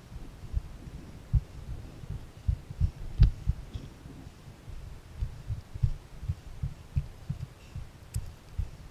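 Dull, irregular low thumps, about two a second, from footsteps and jolts reaching a body-worn action camera as the hiker climbs over sandstone. A sharper single knock comes about three seconds in.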